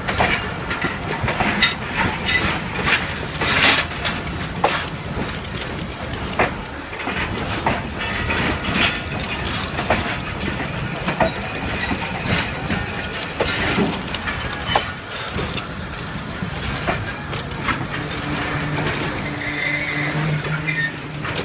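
Passenger train coaches rolling along the track, wheels knocking and clacking irregularly over rail joints under a steady rumble. Near the end a steady pitched tone and a high squeal come in.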